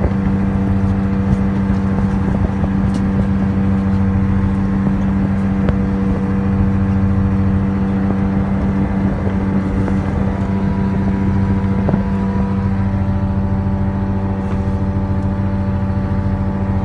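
Fishing boat's engine running steadily while the net hauler draws the gillnet aboard: an even, pitched hum that does not change.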